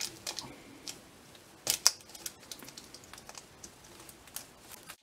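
Plastic shrink-wrap on a DVD case crinkling and crackling as gloved fingers handle it and pick at it with a small tool: scattered sharp crackles and clicks, the loudest a little under two seconds in.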